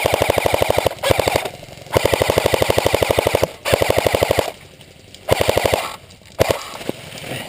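Airsoft electric rifle firing full-auto bursts close by: six rapid strings of shots, the longest about a second and a half, ending with a very short burst near the end.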